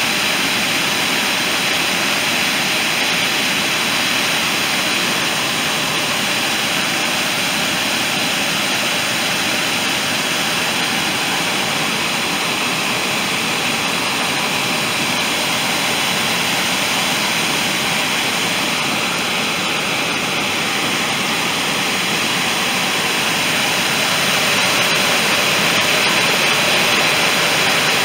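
Water pouring over a low dam spillway and churning in the pool at its foot: a loud, steady rush that swells a little near the end.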